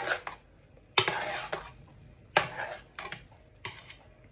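A spoon stirring cooked rice in a metal pot. There are four strokes, about a second apart, each starting with a sharp knock of the spoon against the pot and followed by a short scrape through the rice.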